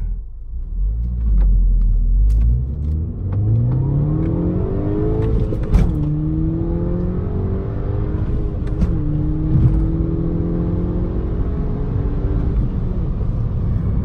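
2014 VW GTI's turbocharged 2.0 TSI four-cylinder accelerating hard from a standstill, heard from inside the cabin. The engine note climbs steadily, drops sharply at an upshift about six seconds in, climbs again, drops at a second upshift near nine seconds, then rises more slowly.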